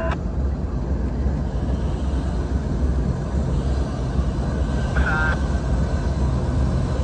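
Diesel-electric locomotives of a Norfolk Southern intermodal train approaching, a steady low engine rumble. A brief higher-pitched sound cuts in about five seconds in.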